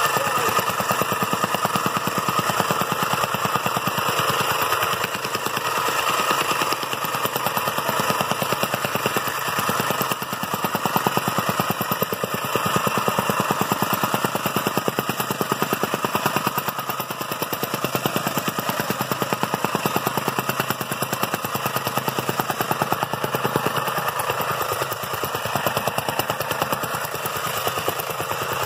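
Gas-powered jumping jack tamping rammer running steadily, its foot pounding rapidly on a loose gravel base as it compacts it: a fast, continuous hammering over the engine.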